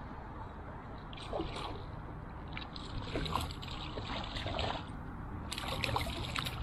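A small hooked smallmouth bass splashing and thrashing at the water's surface as it is reeled in to the bank. The splashing comes in irregular bursts starting about a second in, strongest near the middle and again near the end.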